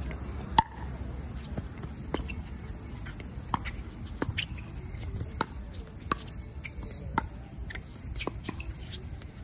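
Pickleball rally: sharp pops of paddles hitting the hollow plastic ball and the ball bouncing on the hard court, about one a second. The loudest pop comes about half a second in.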